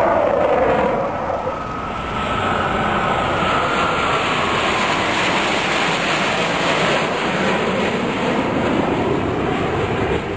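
Jet engines of four Blue Angels F/A-18 Hornets flying over in diamond formation: a loud, steady roar with a whine that slowly falls in pitch as they pass.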